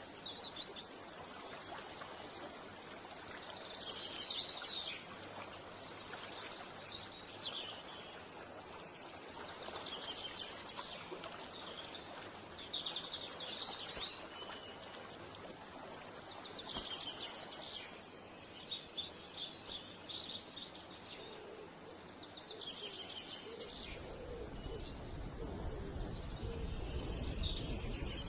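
A songbird singing in short phrases repeated every couple of seconds, over steady background noise. A low rumble comes in near the end.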